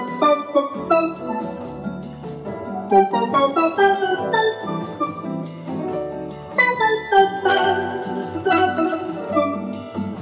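Roland Aerophone AE-10G digital wind instrument playing a melody on a steel-drum-like patch, made by layering synth bass in three octaves with a lead guitar voice, with chorus, reverb and a slight delay. The notes strike and decay quickly over lower held notes.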